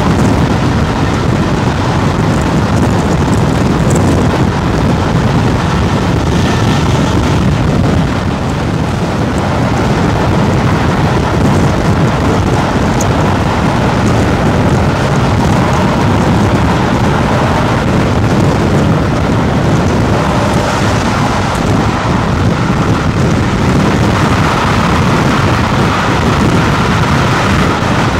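Train hauled by the A1 Pacific steam locomotive 60163 Tornado running at speed: a loud, steady rush of wind, wheel and rail noise with no single beat standing out.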